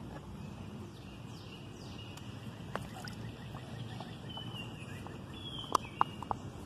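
Water in a plastic wading pool lightly splashing and dripping as a toddler moves his hands in it, with a few sharp drips near the end. Faint bird chirps over a steady outdoor background.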